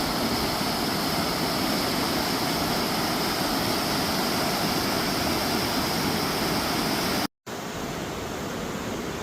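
Steady rushing water from a river, an even unbroken noise. It breaks off abruptly about seven seconds in and resumes slightly changed.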